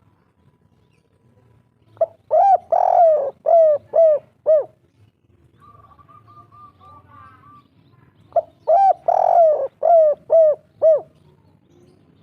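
Spotted dove singing the 'kuk 3' song: two phrases of about six coos each, a few seconds apart, each with a longer, fuller coo near the start and ending in three short coos. Between the phrases, a fainter quick run of high notes from another bird.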